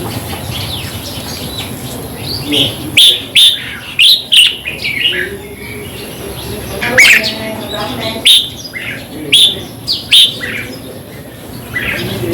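Red-whiskered bulbul singing: short, bright whistled phrases in quick bursts, loudest in a cluster about three seconds in and again from about seven to ten seconds in.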